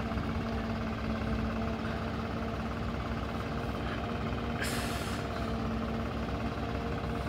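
Tractor engine running steadily, with a short burst of hiss about two-thirds of the way through.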